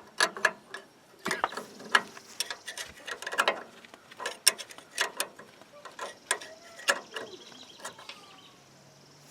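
Hand tools and metal parts clicking and clanking at an irregular pace during work on a winch solenoid pack's mounting hardware. The knocks come singly and in small clusters, some with a short metallic ring, with a brief run of quick ticking about three-quarters of the way through.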